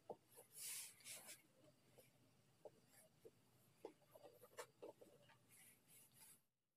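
Faint rustling and rubbing of cloth as hands smooth and fold fabric flat on a table, with a few light taps, stopping suddenly near the end.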